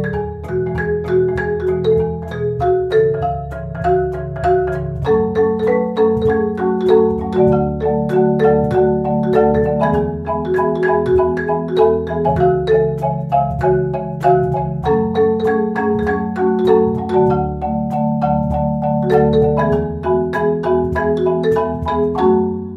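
Background music: a quick melody of short struck notes over held low chords, fading out at the end.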